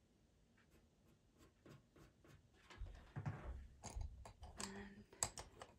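Light ticking and scratching of a pastel pencil making short strokes on Pastelmat paper. From about three seconds in there are closer handling clicks and rustles, with one sharp click near the end.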